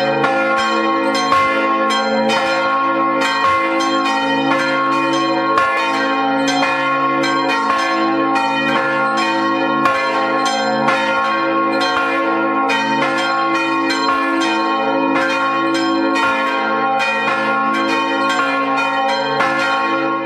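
A peal of church bells ringing, strike after strike at an even pace of about two a second, the tones hanging on between strikes. It cuts off suddenly at the end.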